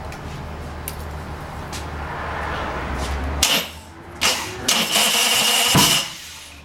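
Drake racing engine being started: a steady low hum, then about three and a half seconds in it fires with sudden loud bursts that come and go several times as it tries to catch.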